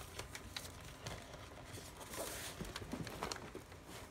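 Paper paintings burning: irregular small crackles and rustles of paper in a fire, with a brief hiss about two seconds in.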